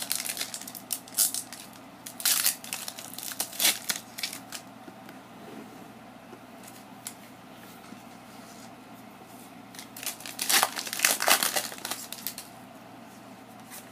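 Foil Pokémon booster pack wrapper being torn open and crinkled: short bursts of crackling over the first four seconds, then a louder spell of crinkling about ten to twelve seconds in as the cards are drawn out of the foil.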